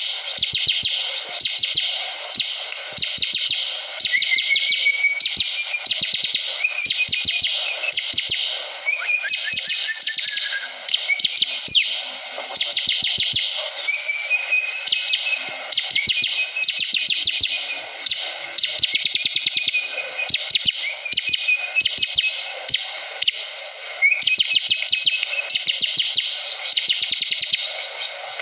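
Bar-winged prinia (ciblek kristal) singing non-stop: a fast, high chattering trill of rapid ticks, broken every few seconds by short rising whistles.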